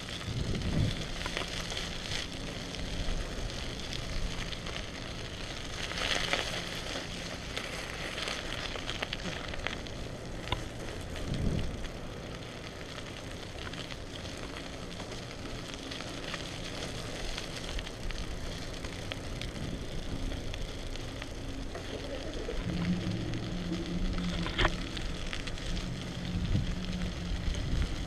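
Bicycle ride on wet pavement, heard through a handheld action camera: a steady crackling hiss of tyres and wind on the microphone, with scattered clicks and a low hum in the last few seconds.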